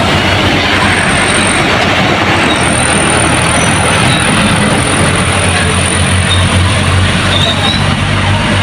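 A heavy vehicle running steadily, a loud, even rumble with a low hum underneath and a faint high whine on top.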